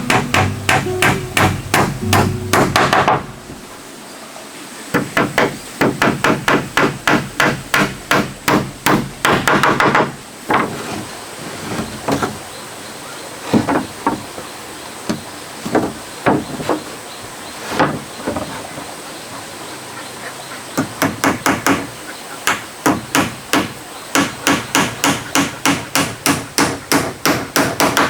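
Hammer blows on wood in quick runs of about four strikes a second, broken by short pauses with a few single strikes.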